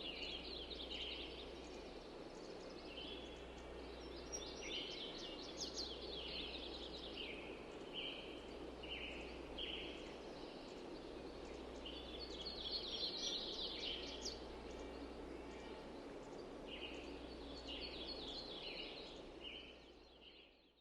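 Small birds chirping and twittering in repeated bursts of short, high calls, over a steady low hum and outdoor background noise; it all fades out near the end.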